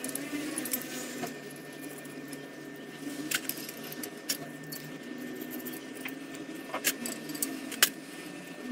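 Small metal parts clinking as new bolts, lock plates and nuts are fitted by hand to a steel motorcycle rear sprocket and its carrier: scattered sharp metallic clicks, a handful over several seconds, the loudest near the end.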